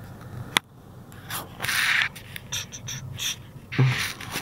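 Short bursts of a person's breath noise inside a car, the loudest about two seconds in, with a sharp click about half a second in.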